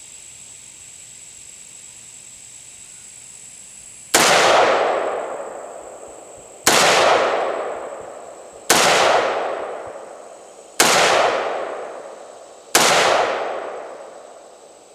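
A 300 AAC Blackout AR pistol with an 11.3-inch Wilson Combat barrel fires five single shots, about two seconds apart, each with a long echoing tail. The pistol cycles on every shot, so the function test passes.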